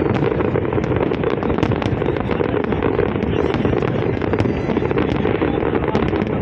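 Fireworks crackling, many quick sharp pops scattered over a dense, steady background noise.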